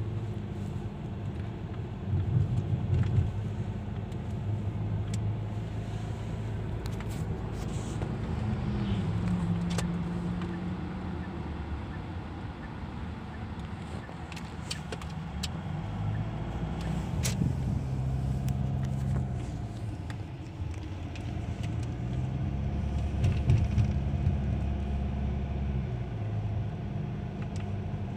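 Car interior noise while driving: a steady low rumble of engine and tyres on the road, with the engine hum shifting up and down in pitch several times.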